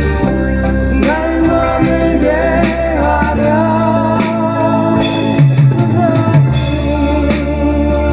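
Drum kit played along to a 1970s Korean band recording, with a melody line wavering above steady drum hits. Cymbals wash in about five seconds in.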